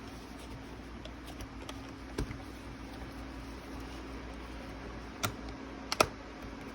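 Scattered sharp clicks and taps of small parts being handled, the loudest one about six seconds in, over a steady low hum.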